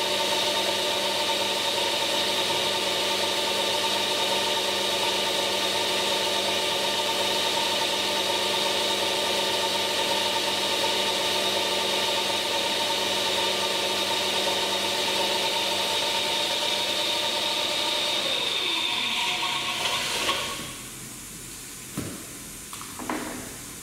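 Reverse osmosis rig's pump running loud and steady, a high whine over a lower hum. Near the end it is shut down and winds down, falling in pitch until it stops, leaving a quieter room with a single knock.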